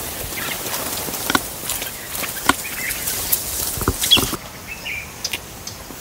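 Outdoor ambience with a steady hiss, a few short bird chirps and scattered sharp clicks.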